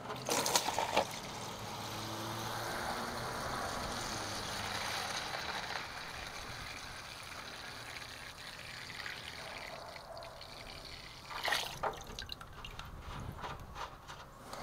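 Old fuel trickling out of a truck's fuel-tank drain into a container, with a few sharp knocks about half a second in and again near the end.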